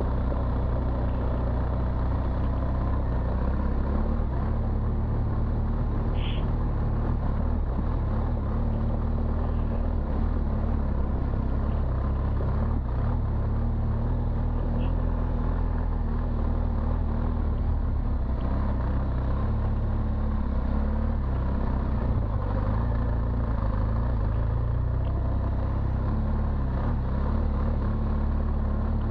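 BMW R1200 GS Adventure's boxer-twin engine running steadily as the motorcycle rides along a dirt trail, a constant low rumble heard from the bike-mounted camera.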